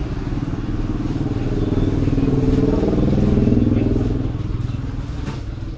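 A motorcycle driving past on the road, its engine growing louder to a peak about three seconds in and then fading as it moves away.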